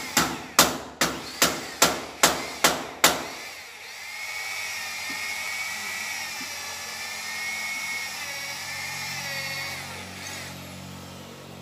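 About eight hammer blows, roughly two and a half a second and ringing, growing louder, then stopping about three seconds in. An electric hand drill then runs steadily for about six seconds with a high wavering whine as it bores overhead into the door frame, and winds down near the end.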